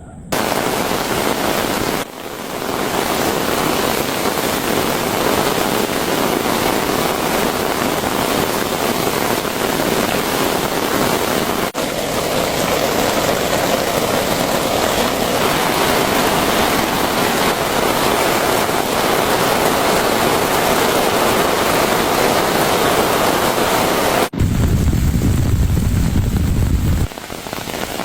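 Heavy rain falling steadily: a loud, dense hiss, with a low rumble under it for a few seconds near the end.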